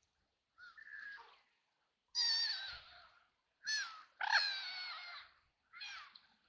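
Ducks quacking: a run of about five harsh calls, the loudest a little over two seconds in and again about four seconds in.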